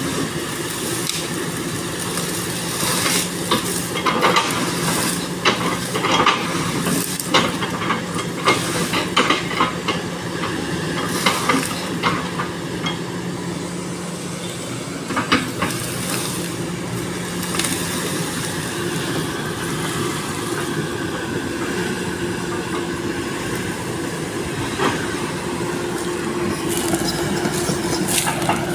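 SANY SY215C excavator's diesel engine running steadily while its bucket chops and breaks up a felled oil palm trunk, with frequent sharp cracks and knocks of wood splitting through the first half, then only a few.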